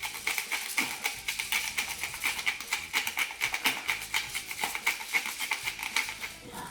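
Pepper mill being twisted to grind pepper, a rapid, steady run of small crunching clicks that stops near the end.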